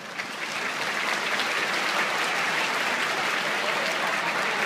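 Audience applauding: clapping swells in just after the start and then holds steady.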